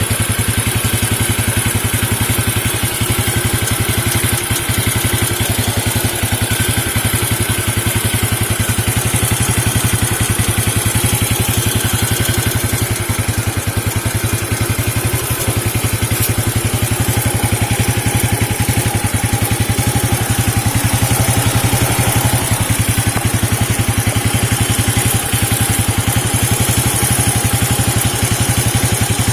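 Engine idling steadily with an even firing rhythm, running on engine oil mixed with cooking oil.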